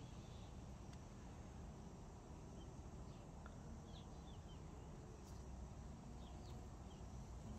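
Quiet outdoor background: a steady low rumble with faint, brief bird chirps scattered through.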